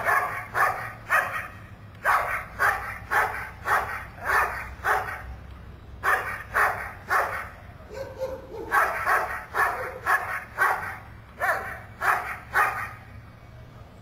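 Dog barking at a helper with a bite sleeve in Schutzhund protection work: about twenty sharp barks, roughly two a second, in runs with short breaks, stopping shortly before the end.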